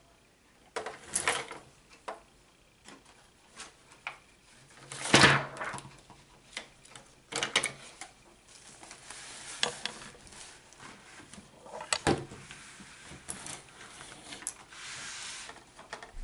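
Close handling noise: a string of clicks and knocks, the loudest about five seconds in, then stretches of rustling through the second half.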